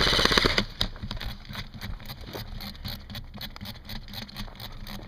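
An airsoft electric gun firing on full auto, a fast even rattle of shots that stops about half a second in. After it come quieter, irregular clicks and rustling from the player moving behind cover.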